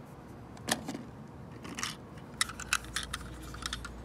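Plastic toy trucks being handled, clicking and knocking as they are picked up and moved: one sharper knock under a second in, then a quick run of light plastic clicks in the second half.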